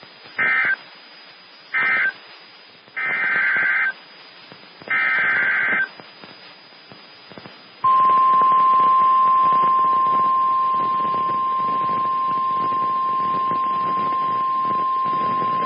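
NOAA Weather Radio SAME data bursts: two short warbling bursts, likely the end-of-message code of the previous warning, then two longer, roughly one-second bursts carrying the header of the next warning. About eight seconds in, the steady, loud 1050 Hz weather-radio warning alarm tone starts and holds.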